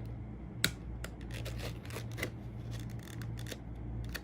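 Light clicks and rustles of hands handling small packaging and parts, with one sharper click about half a second in, over a steady low hum.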